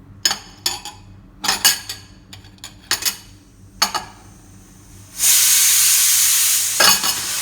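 Garlic cloves being crushed with about eight sharp knocks over the first four seconds. Then a loud, steady hiss starts suddenly about five seconds in and keeps going.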